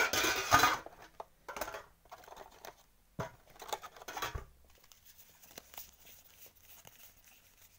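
Trading cards being lifted out of a metal collector's tin and leafed through by hand: rustling, sliding card stock with a few sharp knocks. The handling is loudest in the first second, with shorter spells of rustling around one and a half and four seconds in, then it fades to light rustles.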